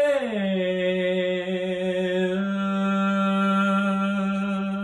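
A young man singing the long held final note of a French art song, on the last syllable of "oubliées". The voice drops a step at the start, then holds the note steadily, its vowel shifting about two and a half seconds in.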